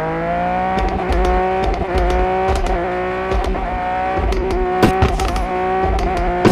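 Porsche 911 GT3 RS flat-six engine rising briefly in pitch, then holding a steady high rev, with a scatter of sharp exhaust crackles and pops, most of them about five seconds in.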